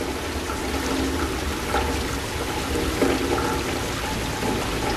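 Heavy rain falling on a street, with rainwater running steadily along the gutter and pouring into a storm drain.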